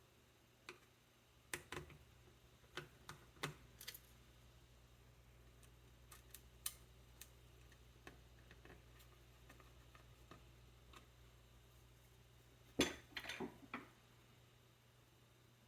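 Small, sharp clicks and taps of small laptop parts being handled while the SSD slot is worked on: a few scattered clicks in the first four seconds, faint isolated ticks after, and a quick cluster of louder clicks about thirteen seconds in, over a faint steady hum.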